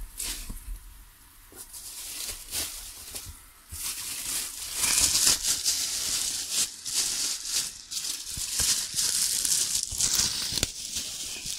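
Clear plastic wrapping crinkling and rustling as it is handled, with a few light knocks in the first few seconds; the crinkling turns louder and busier about four seconds in.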